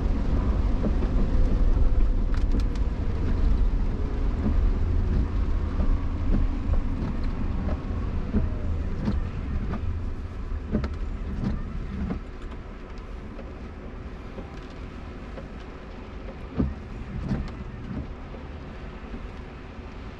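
Cabin noise of a Jaguar I-PACE electric SUV on a rain-wet road: a steady rumble of tyres on the wet pavement with a faint whine falling in pitch as the car slows. The noise drops away about twelve seconds in as the car comes to a stop, and a couple of short knocks follow near the end.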